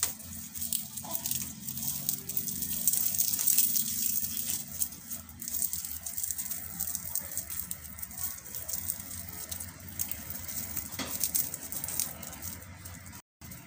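Fresh lemongrass stalks and leaves rustling and crackling as they are twisted and knotted by hand, with many small crisp clicks, busiest in the first half and softer later.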